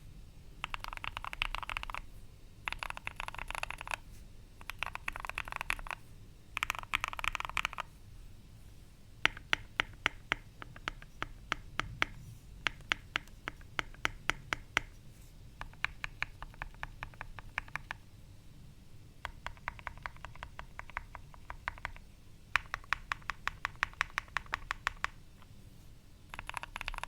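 Typing on a Keychron Q1 mechanical keyboard with Gateron Milky Yellow linear switches: short bursts of fast key clatter alternating with stretches of separate, distinct keystrokes.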